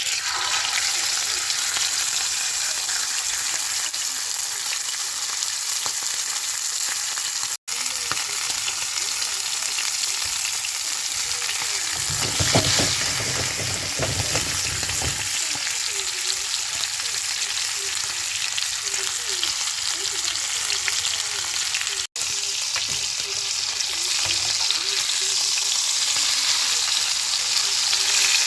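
Food sizzling and crackling steadily in a hot frying pan, with occasional stirring. About twelve seconds in there is a few seconds of low rumbling, and the sound breaks off twice for an instant at cuts.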